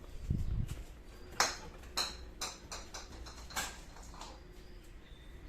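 A brief low rumble, then about six sharp clicks and taps at uneven intervals, some with a short ring.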